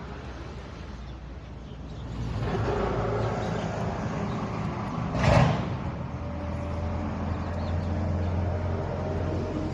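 A vehicle engine running with a steady low drone that grows louder about two seconds in, and one brief loud knock a little past five seconds.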